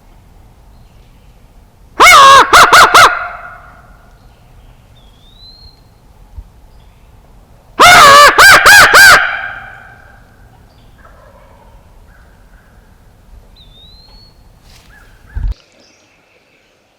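Wild turkey tom gobbling twice, loud and close, each gobble a quick rattling burst about a second long. Faint short rising bird chirps come between the gobbles, and there is a brief low thump near the end.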